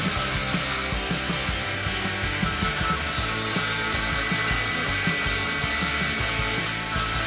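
A saw cutting through wood, with continuous sawing noise throughout, under background music.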